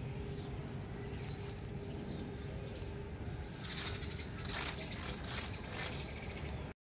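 Outdoor background sound: a steady low rumble with a faint steady hum through the first half, and a few short, high chirps in the second half. The sound cuts off suddenly just before the end.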